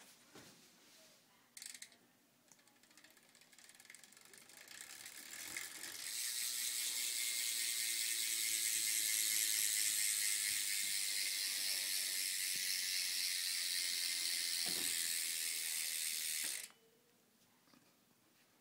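Rear hub of a Fit Inman One BMX bike ratcheting as the wheel freewheels: a few faint clicks, then a fast, high-pitched buzz of the pawls that builds over about two seconds, holds steady for about ten seconds, and cuts off suddenly.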